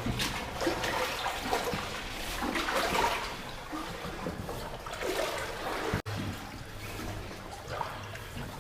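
Shallow water sloshing and splashing around feet wading through a flooded tunnel, in uneven steps.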